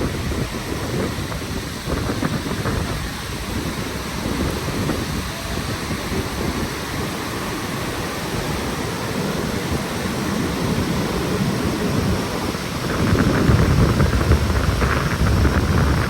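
Wind gusting against the microphone, rumbling and buffeting, over the steady rush of the Gullfoss waterfall; the gusts swell about thirteen seconds in.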